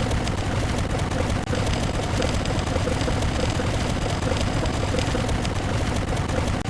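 A dense, continuous wall of many overlapping sound effects mixed together, with a short tone pulsing over it at a regular rhythm.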